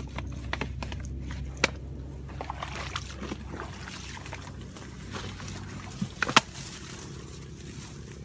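Hands rustling through dry grass and scraping at the soil, with a few sharp clicks, the loudest about one and a half seconds in and about six seconds in.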